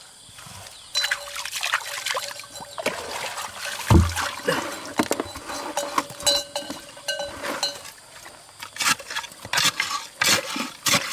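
Hands splashing and scooping in shallow muddy water, with irregular small splashes and dribbles, and a heavy thump about four seconds in.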